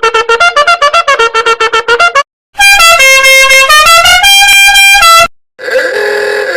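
A string of meme sound-effect clips. First comes a fast run of short staccato notes. After a brief gap comes a loud horn-like tune of held notes stepping up and down in pitch, and a shorter pitched sound starts near the end.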